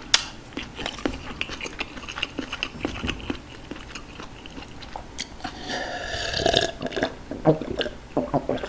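Close-miked chewing of green onion kimchi and Jjapaghetti noodles: many short wet mouth clicks and smacks, with a longer drawn-out mouth sound a little past halfway.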